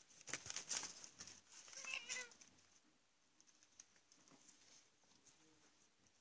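A kitten meows once, briefly, about two seconds in, just after a burst of rustling and scratching among cardboard.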